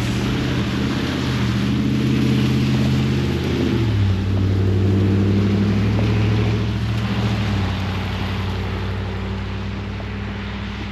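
A motor vehicle's engine droning as it drives past on the road, its pitch dropping about four seconds in as it goes by, then slowly fading.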